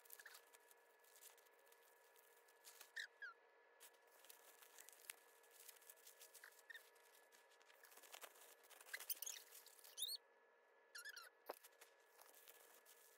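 Faint crinkling and rustling of bubble wrap and tissue paper being unwrapped by hand, with short squeaks now and then. It is loudest about nine seconds in.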